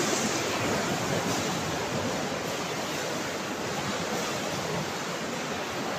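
Waves in a towing tank washing against the automated wave-absorbing beaches along the tank wall, a steady rush of water that eases a little as the beaches dissipate the wave energy and the tank calms.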